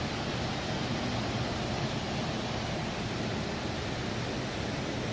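Whitewater rapids on a wide, fast river, rushing steadily with no break.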